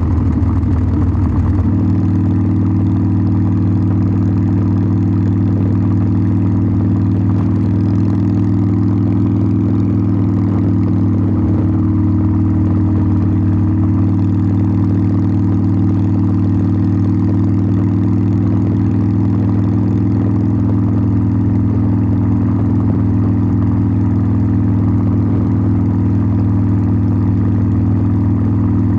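Harley-Davidson Sportster 1200's air-cooled V-twin running through its exhaust. The revs change in the first second or two, then settle and hold one steady pitch.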